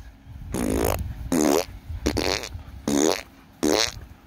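A man's voice chanting a slow, rhythmic sing-song "beep beep boop boop" potty call to puppies: five drawn-out calls, evenly spaced about a second apart, each bending in pitch.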